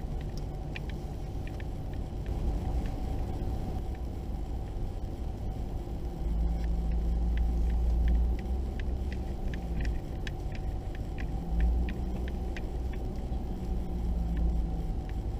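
Vehicle driving slowly on a gravel road, heard from inside the cab: a steady low engine and road rumble that grows louder about six seconds in, with scattered sharp ticks of gravel under the tyres.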